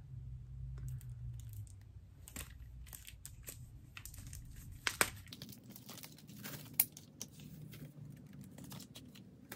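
Plastic wrapping crinkling and tearing as a CD jewel case is unwrapped by hand, with scattered small clicks and two sharper clicks about five and seven seconds in.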